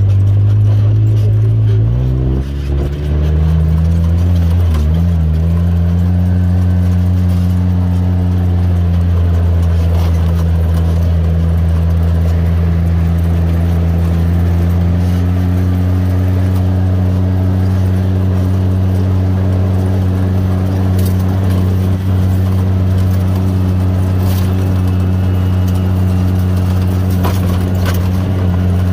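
Off-road vehicle's engine running at a steady drone while driving, heard from on board; its pitch shifts once about two and a half seconds in, with a few light rattles and clicks later on.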